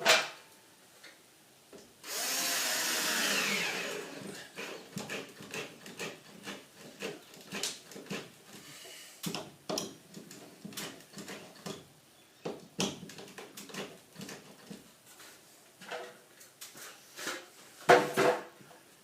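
Cordless drill driving a screw up into a sagging plasterboard ceiling for about two seconds, its pitch falling as the screw bites and pulls the sheet back up. Scattered clicks and knocks of handling follow, with a few louder knocks near the end.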